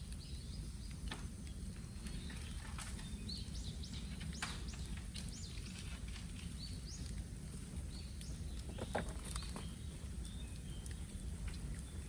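Bamboo bonfire burning: a steady low rumble of flames with scattered sharp crackles and pops, and a few short high chirps.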